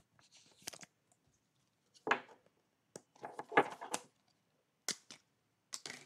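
Baseball trading cards and foil pack wrappers being handled: a few short clicks and crinkles, the loudest about two seconds in and a quick cluster around three and a half seconds.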